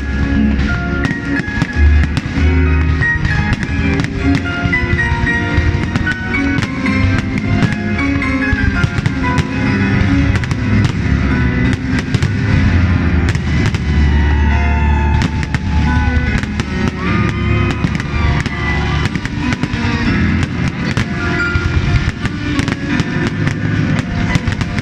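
Fireworks display: a rapid run of bangs and crackles throughout, with loud music playing along.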